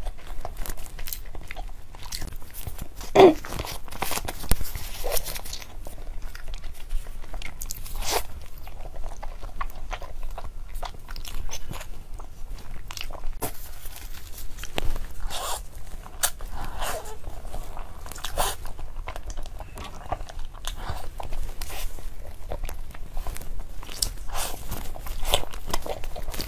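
A person biting and chewing food close to the microphone, with many small crunches and mouth clicks scattered throughout.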